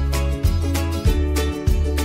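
Upbeat background music with a steady beat of about three strikes a second over held bass notes.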